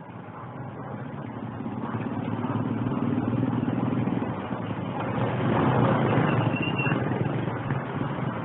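Motorcycle engine running under way, heard from a helmet-mounted phone, growing louder over the first few seconds as it pulls and staying strong to the end.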